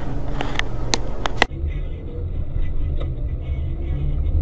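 Several sharp knocks in the first second and a half, then an abrupt cut to the steady low rumble of a car's engine and road noise while driving.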